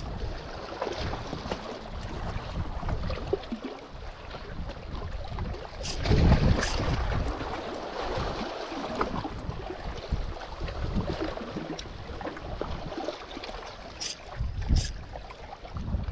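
Wind buffeting the microphone on a rocky seashore, with the sea washing against the rocks; the gusts are strongest about six seconds in and again at the end. A few short sharp clicks come through, two around six seconds in and two around fourteen seconds in.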